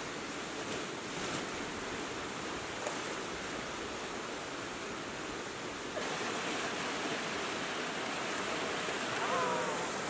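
Water cascading fast down a smooth natural rock water slide into a pool: a steady rushing hiss with no distinct splashes. It gets slightly louder and brighter about six seconds in.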